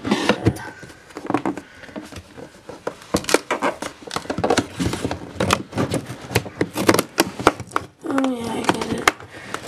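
Cardboard box being handled and picked at while trying to peel off a stubborn seal: irregular scratches, taps and clicks. A short low hum comes about eight seconds in.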